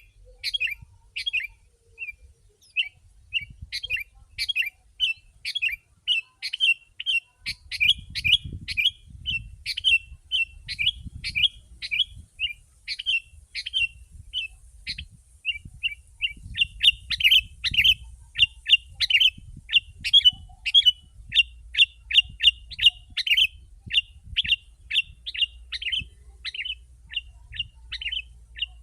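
Sooty-headed bulbul (kutilang) in full, non-stop song: a rapid, dense run of short chirping notes, about two to three a second, without pause.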